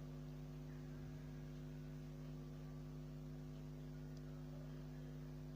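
Steady low electrical hum with a row of even overtones, unchanging throughout; no other sound stands out.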